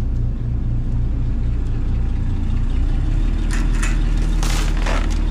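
A shrimp trawler's engine idling with a steady low hum. From about three and a half seconds in, several loud bursts of hissing come and go over it.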